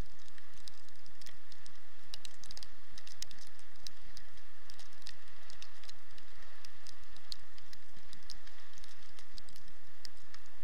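Sled-dog team running on snow: a dense, irregular patter of paws and small clicks over a steady hiss of sled runners.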